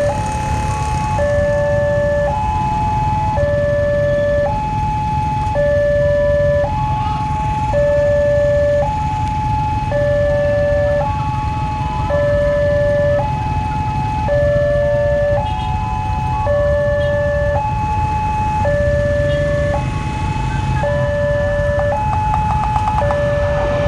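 Railway level-crossing warning alarm sounding a repeating two-tone chime, a higher tone then a lower one, about one pair every two seconds, signalling an approaching train. Under it is the low rumble of idling motorcycles.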